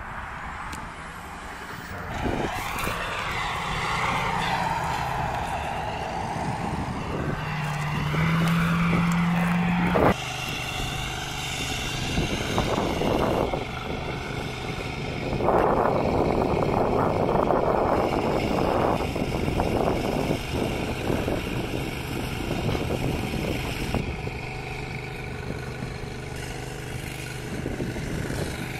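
Fire brush truck engines running: a steady low hum, with a louder tone that steps up in pitch about seven seconds in and cuts off suddenly about three seconds later. A stretch of rushing noise comes midway.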